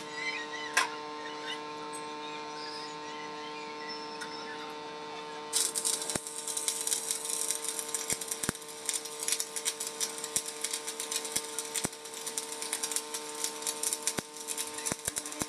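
Stick (arc) welding on steel. A steady electrical hum comes first, and about five and a half seconds in the arc strikes and crackles and sizzles continuously, with sharp spatter clicks, to the end.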